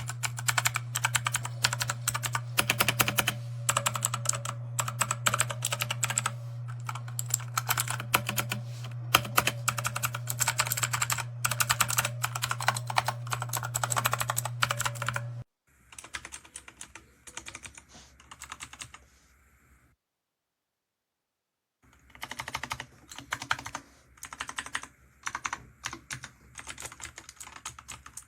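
Rapid typing on a DIERYA T68SE 60% mechanical keyboard, a dense clatter of key clicks over a steady low hum. About 15 seconds in, the hum stops and the typing turns quieter. The typing then stops for about two seconds and resumes.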